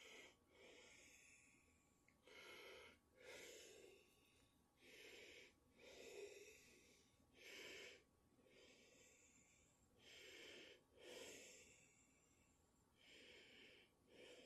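A person breathing heavily, faint, with slow repeated in-and-out breaths throughout.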